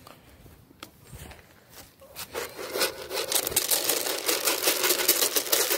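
Chicken feed pouring from a blue plastic scoop onto a wooden pallet: a dense, rattling rush of grain starting about two seconds in, after a little quiet rustling.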